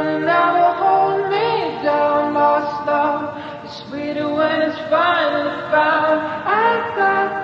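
A song's sung vocals, voices holding notes and sliding between pitches, with little accompaniment beneath.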